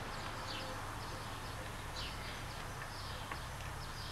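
Birds chirping: short, high, falling calls every half second or so, over a steady low rumble of outdoor background noise, with a faint tick or two.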